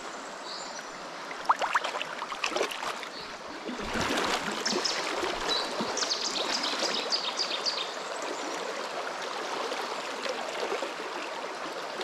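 Shallow river running over stones, a steady rush of water with a few light splashes. The water grows louder and choppier about four seconds in.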